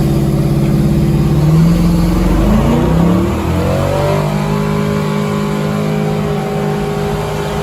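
Car engine revving: its pitch climbs in rising sweeps for the first few seconds, then holds at a steady high speed.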